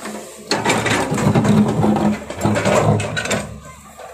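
Excavator digging: its steel bucket teeth scrape and crunch into stony soil over the diesel engine's low, steady hum. The crunching starts about half a second in and dies down near the end.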